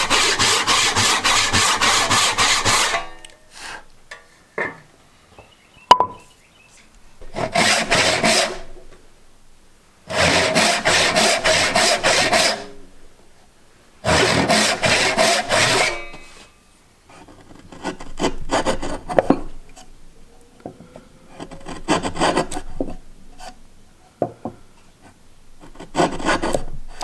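A hand tool working wood in rapid rasping strokes, coming in bursts of one to three seconds with pauses between. The later bursts are fainter.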